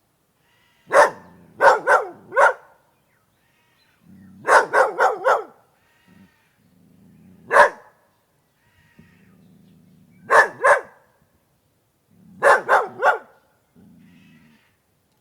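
Dog barking in short volleys of one to four sharp barks, with pauses of a second or two between volleys.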